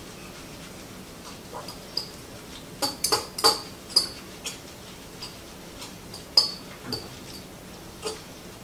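A utensil clinking against a dish while chopped kale, tomatoes, scallions and olives are stirred together: scattered clinks, with a quick run of them about three seconds in and another about six seconds in.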